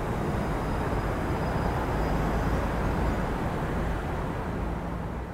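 Subway train running through the rail yard: a steady low rumble that eases slightly near the end.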